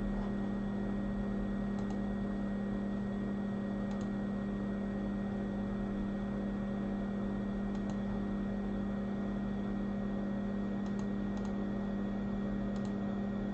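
Steady low hum with a faint even hiss from running workbench equipment, unchanging throughout, with a few faint light clicks.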